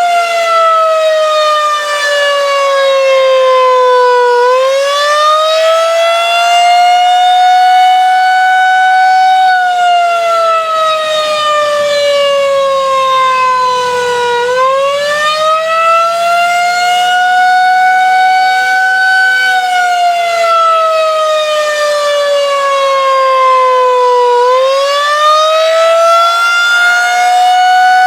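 Federal Signal 2001-130 outdoor warning siren sounding the attack signal: a loud wavering wail whose pitch falls for about five seconds and rises for about five seconds, over and over.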